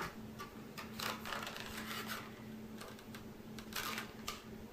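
Faint handling noise: scattered light clicks and rustles of a fishing jig's plastic blister packaging being picked up and turned over, over a steady low hum.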